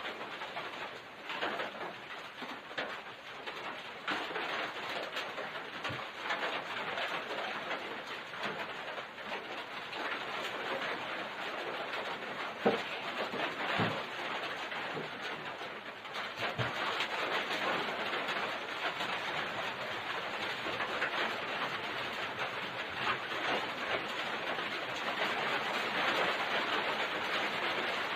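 Strong, gusty wind blowing hard, a steady rushing noise that swells and eases. A sharp knock sounds about halfway through, with a weaker one a second later.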